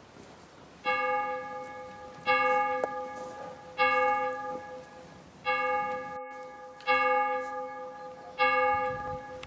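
A single church bell tolling six times, about a second and a half apart, each stroke ringing on and fading before the next.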